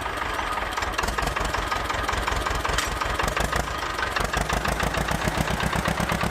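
Tractor engine idling with a steady, rapid, even chug.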